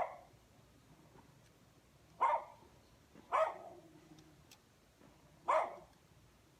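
A dog barking: four single barks, a second or two apart, over a quiet background.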